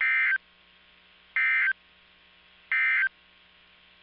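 Three short digital data bursts about a second apart, sent over NOAA Weather Radio: the EAS/SAME end-of-message code, which marks the close of the severe thunderstorm warning.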